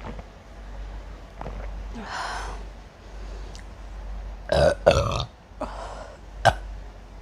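A person burping several times after drinking mixed soda: two loud burps close together about four and a half seconds in, another a second later, and a short sharp one near the end.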